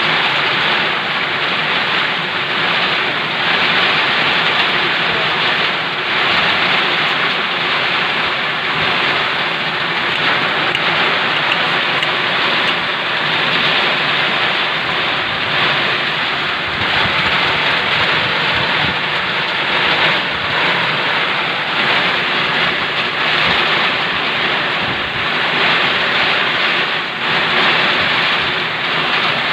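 Heavy storm rain falling steadily, a dense continuous hiss with wind.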